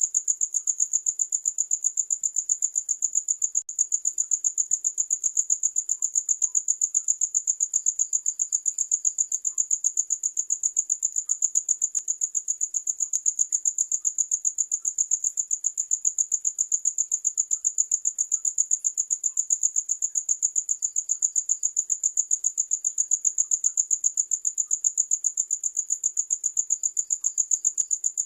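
Cricket chirping steadily in a fast, even pulse at one high pitch, with a fainter, slightly lower chirp now and then.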